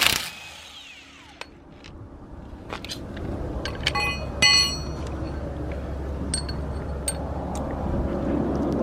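Metal tools clinking and clanking during a tyre change: a sharp knock at the start, scattered clicks, and two ringing metallic clanks about four seconds in, over a steady low rumble.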